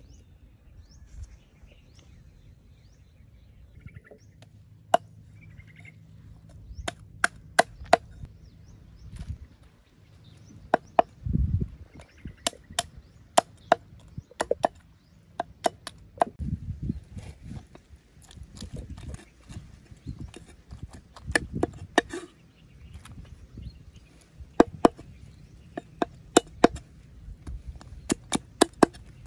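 Knife blade chopping fish on a round wooden chopping block: sharp, irregular knocks, some single and some in quick runs, with a few heavier thuds. The strikes begin a few seconds in.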